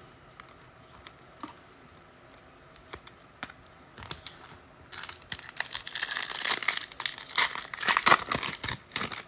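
Foil wrapper of a trading card pack crinkling and tearing as it is ripped open, with a few light clicks at first and dense crackling over the last four seconds.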